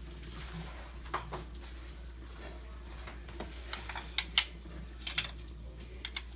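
Light clicks and clinks of kitchen utensils over a steady low hum, scattered in pairs, the loudest pair about four seconds in.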